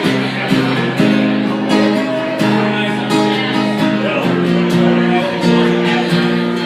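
Acoustic guitar strummed steadily, the instrumental intro of a song; the chord changes about four seconds in.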